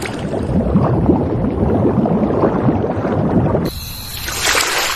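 Underwater bubbling and gurgling sound effect, a dense stream of small bubble blips. About three and a half seconds in it cuts abruptly to a different sound with a short hissing swish.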